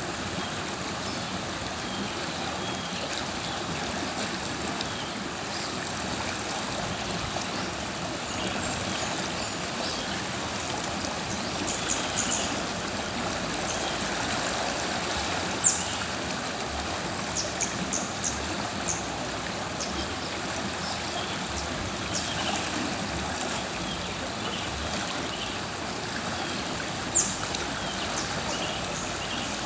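River water flowing steadily, a constant rushing with a few short splashes or drips, the clearest about halfway through and near the end.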